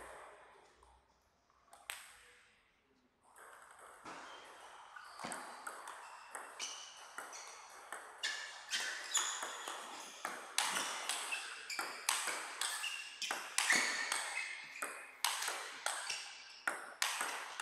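Table tennis ball being hit back and forth in a rally, a sharp ping off the rubber bats and the table roughly twice a second. One lone tap comes about two seconds in, and the rally starts shortly after.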